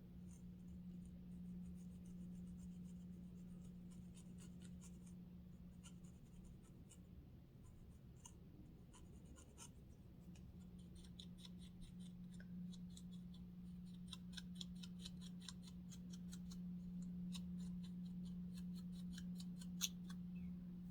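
Lice comb scratching through a dry, flaky scalp: faint quick scrapes and ticks, sparse at first and coming thicker from about halfway, with one sharper tick near the end. A steady low hum lies underneath.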